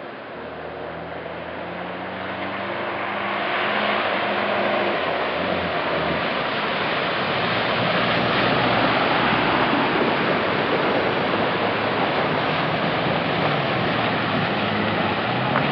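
A Toyota Land Cruiser 4x4's engine running as it fords a river, with a steady rush of water that swells and grows louder from about four seconds in.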